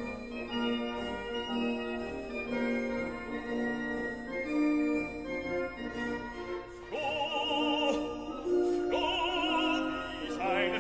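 Background music: held, organ-like chords, then a melody sung with heavy vibrato, in an operatic style, comes in about seven seconds in.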